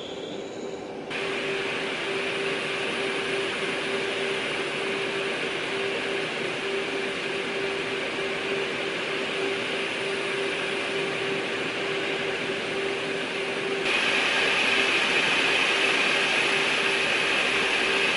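Steady in-flight aircraft noise: engine and airflow rush with a constant hum underneath. It gets louder about a second in and again near the end.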